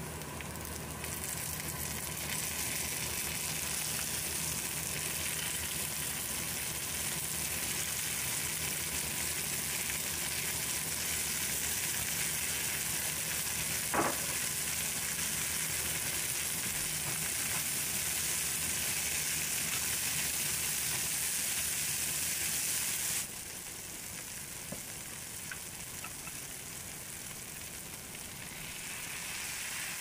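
Food sizzling and frying in hot oil in a pan, a steady hiss with one short sharp clink about halfway through. The sizzle drops suddenly to a quieter level late on.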